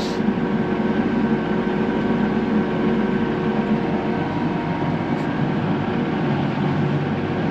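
Large Case IH tractor's diesel engine running steadily, heard from inside the cab: an even rumble with several steady whining tones over it.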